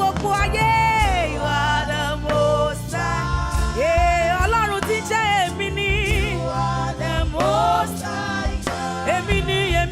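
Gospel praise music: sung voices with vibrato over a band with bass, keyboard and drums.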